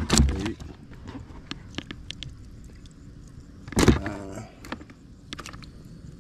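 Live bluegill being handled in a plastic bucket, flopping and knocking against it, with two sharp thumps, one at the start and one about four seconds in, amid small scrapes and clicks.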